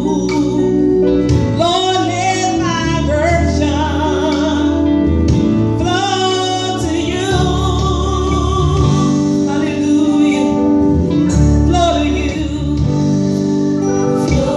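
A woman singing a gospel song over a steady, sustained instrumental accompaniment.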